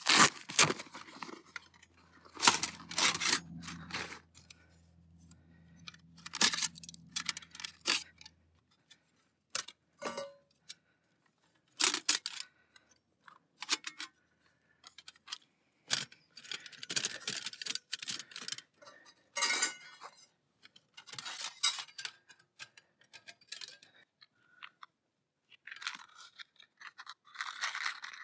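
Handling noises from unpacking and setting up a Firebox folding metal camp stove: a fabric storage pouch rustled and opened, then the stove's hinged metal panels clicking, clinking and scraping as they are unfolded and locked together. The sounds come as irregular sharp clicks and short rasps, loudest in the first few seconds.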